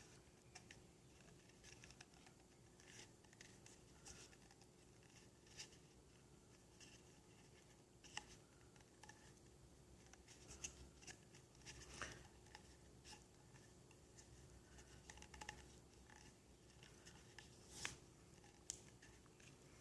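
Near silence with faint, scattered light clicks and rustles of paracord being wrapped and pulled tight around a smooth plastic Mora knife sheath.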